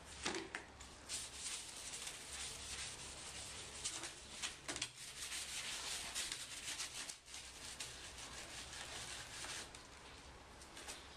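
Continuous rustling and scraping, thick with small clicks, dipping briefly about seven seconds in.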